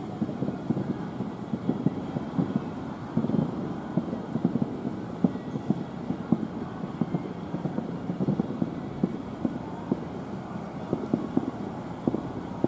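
Aerial fireworks shells bursting at a distance: a continuous, irregular string of dull low booms and pops, with a few louder bangs scattered through.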